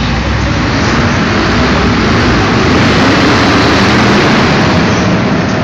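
Several F1 stock cars racing together, their V8 engines running hard in a loud, dense mass of engine noise that builds to its loudest about three to four seconds in.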